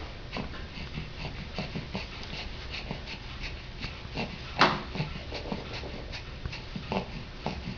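A dog making a string of short, quick noises, several a second, the loudest about four and a half seconds in.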